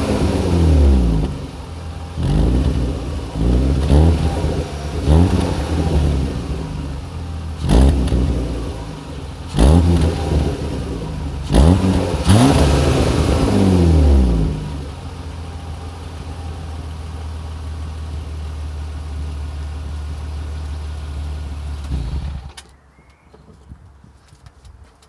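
BMW 325 E36 straight-six on its stock exhaust, blipped through a series of short revs that fall back each time, one held a little longer, then settling to a steady idle. The engine sound stops suddenly near the end.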